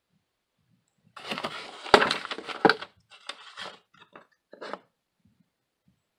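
Brown kraft packing paper crinkling and a cardboard card box being handled, with two sharp snaps about two seconds in, followed by a few shorter rustles that die away.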